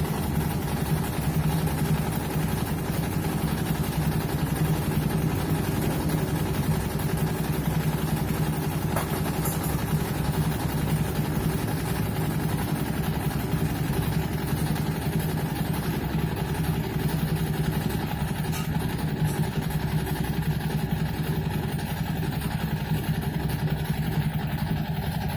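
Samsung WA80T4G top-loading washing machine running its cycle with a steady low hum and a few faint ticks. The abnormal noise is one the owner puts down to a coin stuck inside, blocking the drain chamber.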